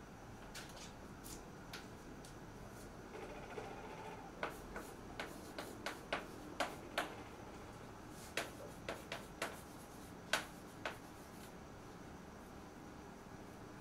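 Chalk writing on a blackboard: a run of sharp taps with a few short scratches as letters are formed. The taps are bunched over several seconds in the middle, with quiet room tone either side.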